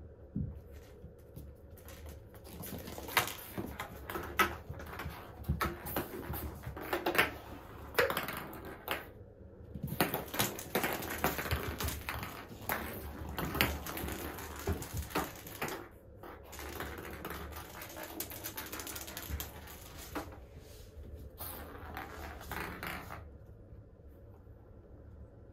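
Kittens scampering and playing on a tiled floor: irregular clicks and scuffles of paws and claws on tile, with small toy balls being batted and rolling, growing quieter near the end.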